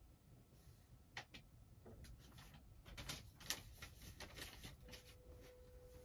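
Near silence: quiet room tone with scattered faint clicks, a few close together about three seconds in, and a faint steady hum that starts about five seconds in.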